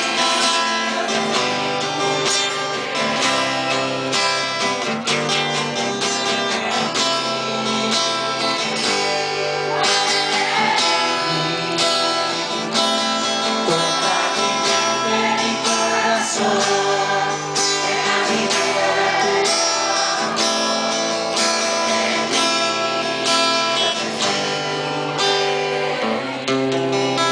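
Upbeat praise music led by strummed guitar, with a steady beat and some singing.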